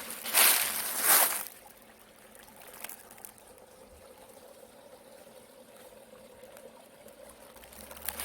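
Footsteps crunching through dry fallen leaves for the first second and a half, then the faint, steady trickle of a small mountain stream.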